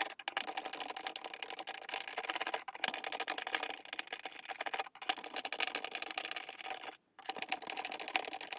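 Screwdriver backing self-tapping screws out of the fan's plastic rear housing: a dense run of rapid clicks, broken by brief pauses about three, five and seven seconds in as it moves from screw to screw.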